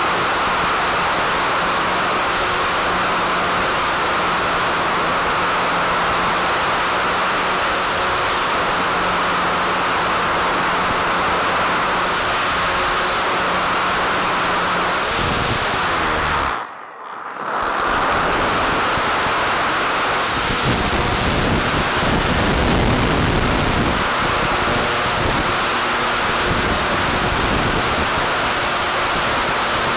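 Steady rushing noise of air and the electric motor driving the propeller of a Multiplex Parkmaster 3D foam plane in flight, picked up by its onboard FPV camera. A faint steady hum under it fades out about halfway through, and the sound briefly drops away almost completely about 17 seconds in.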